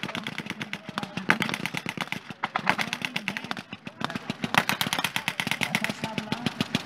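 Rapid, irregular blank gunfire: many sharp cracks a second, overlapping.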